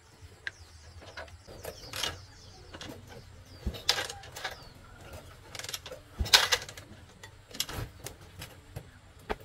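Irregular mechanical clicks, scrapes and knocks of hand work on motorbike parts. The sharpest come about 4 seconds in and just after 6 seconds, the second being the loudest.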